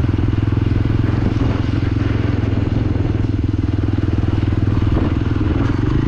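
Motorcycle engine running at a steady speed, an even drone that holds without revving up or down.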